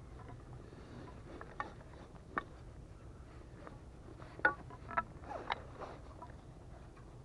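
Handling noises as a fishing rod is slid into its fabric sleeve: a few light clicks and knocks of the rod, the loudest about four and a half and five seconds in, over a steady low background rumble.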